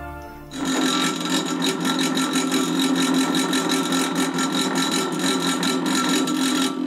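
Small electric cotton candy machine running empty: a steady motor whir from the spinning head with a fast, even rattle, starting about half a second in and cutting off just before the end.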